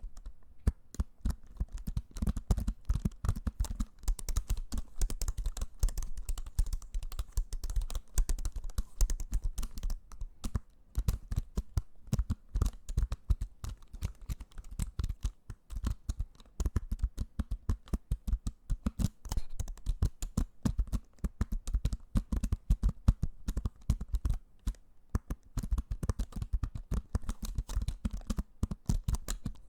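Close-miked ASMR trigger sounds: dense, irregular clicking and tapping, many clicks carrying a dull thump, with short lulls near ten and sixteen seconds in.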